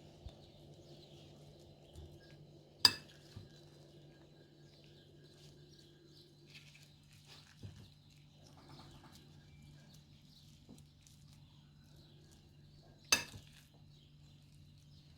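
Two sharp knocks of kitchenware, one about three seconds in and one near the end, over a low steady hum and faint scattered ticks from handling food.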